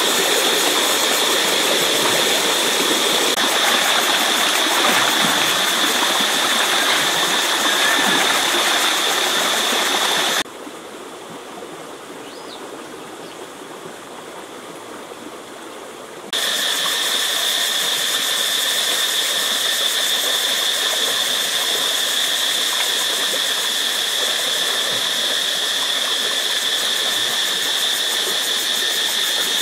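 Steady outdoor ambience: an even rushing noise under a continuous high-pitched whine. About ten seconds in it cuts abruptly to a quieter stretch, then returns just as suddenly about six seconds later.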